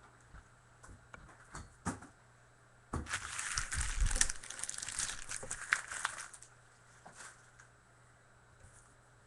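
Plastic rustling and light clicks from trading cards in One-Touch card holders being handled, with a louder crinkling, crackling stretch starting about three seconds in and lasting about three seconds.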